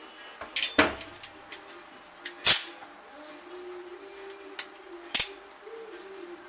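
Hand tools and small wiring parts being handled and set down on a workbench: a few sharp clacks, the loudest about a second in, others at about two and a half and five seconds.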